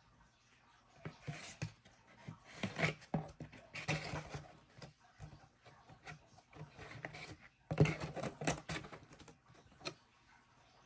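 Hands handling a new wallet and its packaging: irregular rubbing and rustling with light clicks and taps, in a few clusters.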